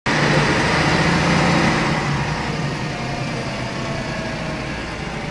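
Scania K113CRB bus's 11-litre diesel engine running under power, heard from inside the passenger saloon; it is loudest for the first two seconds and then eases off.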